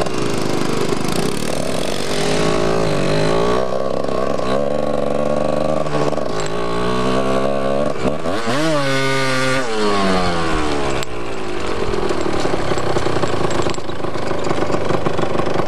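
Yamaha DT 125 two-stroke single-cylinder engine under way, its revs repeatedly rising and falling through the gears. About eight seconds in it revs sharply up and drops back.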